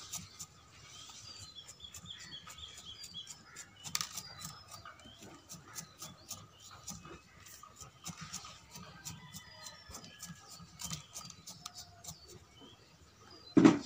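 Light clicks and scratches of a thin stick jabbing into gritty bonsai soil in a ceramic pot, working the soil down around the roots, with small birds chirping in the background. A single dull thump near the end.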